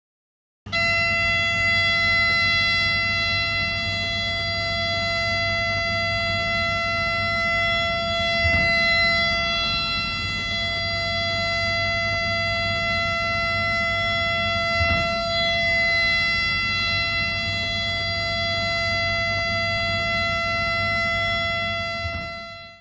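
Shinkansen cab ATC signal tone: one steady electronic tone held for about 22 seconds over a low rumble, fading out near the end.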